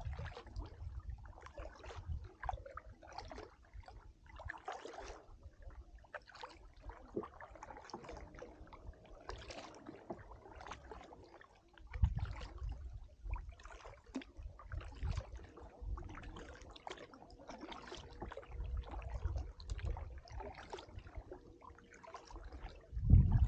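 Kayak paddle dipping and pulling through calm water, with drips and small splashes off the blades at each stroke, coming irregularly. A couple of low rumbles come about halfway through and near the end.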